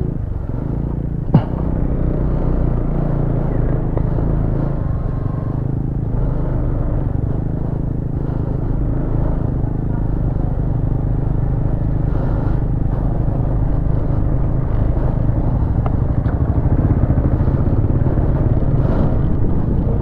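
Motorcycle engine running steadily while being ridden, with a single sharp click about a second in.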